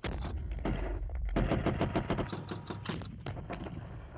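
Rapid automatic gunfire, shot after shot in quick runs, with a deep rumble under it for the first two seconds or so.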